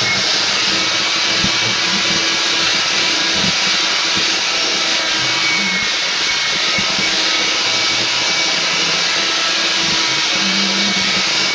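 Vacuum cleaner running steadily, a constant whooshing motor noise with a faint steady whine.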